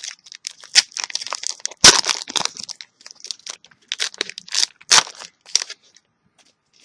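Foil wrapper of a trading card booster pack being torn open and crinkled by hand, in a run of irregular crackles with two louder rips about two and five seconds in, stopping shortly before the end.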